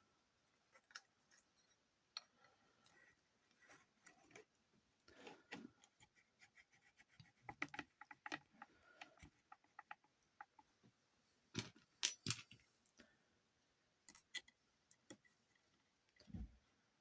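Faint scattered clicks and clinks of small hard objects being handled, with a cluster of sharper clinks about twelve seconds in and a dull thump near the end.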